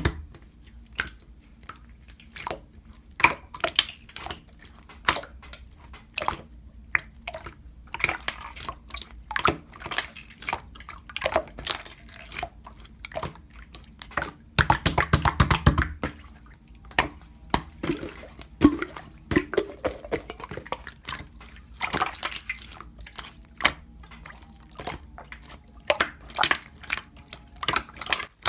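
Slime being squished and poked by hand, making irregular wet clicks and pops, with a quick dense run of pops about fifteen seconds in.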